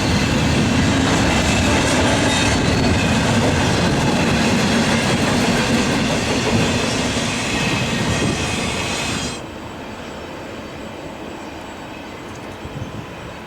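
Double-stack intermodal freight cars rolling past at speed on the rails, the wheels clattering with some high steady tones over the noise. About nine seconds in, the sound drops off sharply to a fainter rumble as the train moves away.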